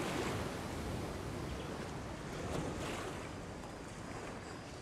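Steady rush of a waterfall and stream pouring into a granite rock pool, with some wind on the microphone.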